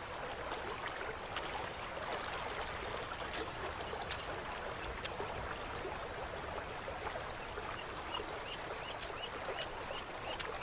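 Running water of a tundra river or stream, a steady rushing with small scattered splashes. Near the end, short high chirps start, repeating about three times a second.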